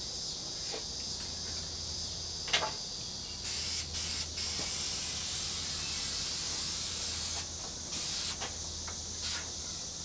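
Aerosol spray-paint can spraying in a steady hiss, growing stronger for a moment now and then, with a short sharp knock about two and a half seconds in.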